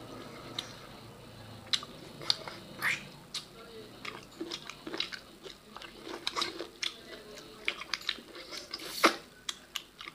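Two people eating rice and pork by hand close to the microphone: chewing, with many short, irregular mouth clicks. The sharpest click comes about nine seconds in.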